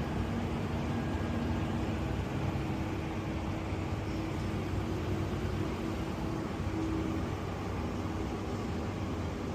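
Steady low mechanical hum with a faint steady tone over it, with no distinct events.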